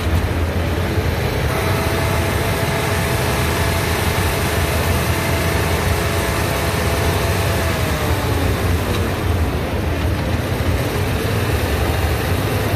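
Yamaha motorcycle engine running with the bike on a roller stand. The revs rise about a second and a half in, hold steady, and ease back down past the middle.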